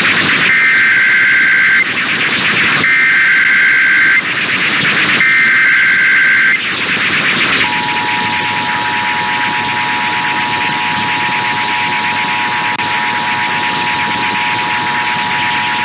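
Emergency Alert System monthly test signalling over hissy radio reception. It opens with three short bursts of screeching digital header tones, the SAME data that encodes the alert. About eight seconds in, the steady two-tone EAS attention signal begins and holds.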